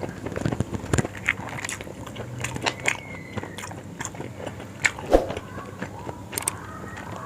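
Close-up mukbang eating sounds: a person biting and chewing yong tau foo, with irregular short wet clicks and smacks of the mouth.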